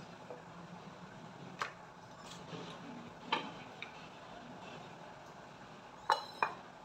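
Wooden rolling pin working rice-flour dough on a granite counter, with a few sharp knocks of wood on stone: one after about a second and a half, another midway, and two in quick succession near the end, over a steady low hum.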